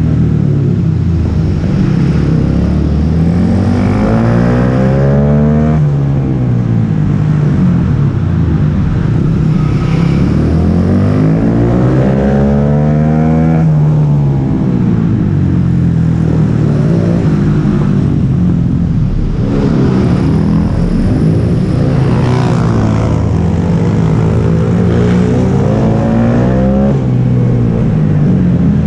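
Small single-cylinder pit bike engine heard from on board, revving up as it accelerates and dropping back as it slows, several times over, at high revs throughout.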